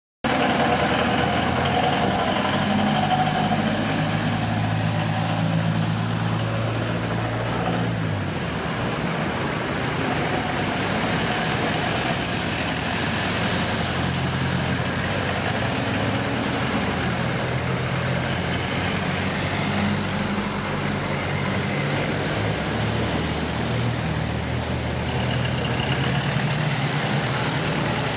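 Engines of classic VIASA-built Jeeps running at low speed as the vehicles drive past one after another, one engine note dropping in pitch as it passes about eight seconds in.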